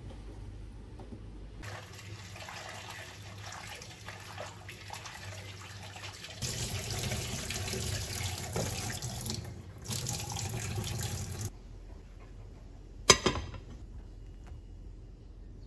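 Kitchen tap running into a glass bowl of cubed raw potatoes as they are rinsed by hand, the water starting about two seconds in, growing louder halfway through with a brief break, and cutting off after about ten seconds. Near the end, one sharp clink as a plate is set down on the glass bowl.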